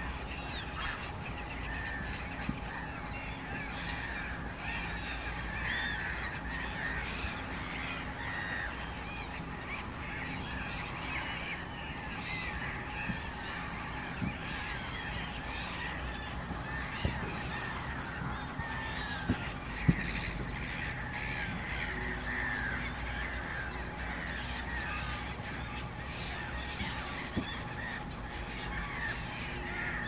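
A large flock of waterbirds calling continuously, many overlapping calls at once, with a couple of short knocks near the middle.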